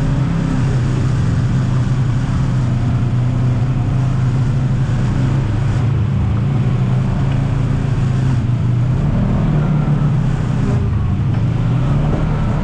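Side-by-side UTV engine running steadily at low revs as the machine drives a rough off-road trail, the engine note swelling slightly about nine seconds in.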